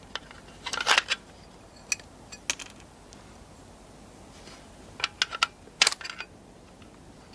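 Sharp metallic clicks and clinks of a pistol and its magazine being handled in the hands. The clicks come in a cluster about a second in, a couple of single clicks follow, and there is another cluster around five to six seconds in.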